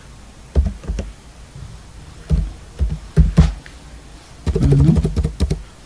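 Computer keyboard keys tapped in irregular clicks as a few words are typed. A brief spoken word about four and a half seconds in.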